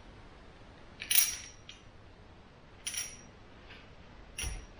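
Chrome-plated thermostatic shower mixer clinking as it is handled and set down on a table: a few sharp metallic clicks with a brief ring, the loudest about a second in, and a dull knock near the end.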